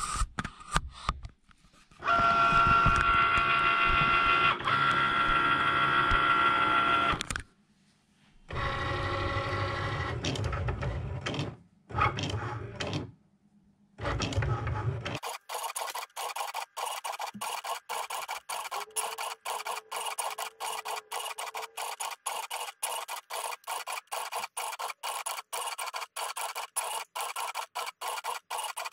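Cricut Maker cutting machine at work after Go is pressed. Its motors run in several loud bursts of a few seconds each, with a steady whine, as it moves the mat and carriage. From about halfway there is a rapid, even ticking as the pen draws the text on the card.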